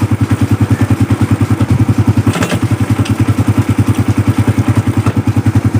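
Suzuki Raider R150 Fi's single-cylinder four-stroke engine running steadily at idle, about ten even exhaust pulses a second. A brief click sounds near the middle.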